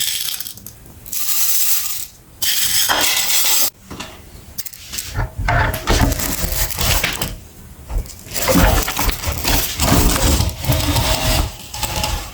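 Meat grinder running and grinding hard material. It comes in separate bursts at first, then turns denser and heavier from about five seconds in.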